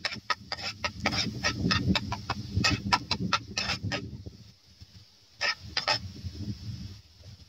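Metal spatula clicking and scraping against a nonstick frying pan in quick strokes while batter fries in sizzling oil. The strokes stop about four seconds in, a few more taps come just before six seconds, and the steady sizzle carries on.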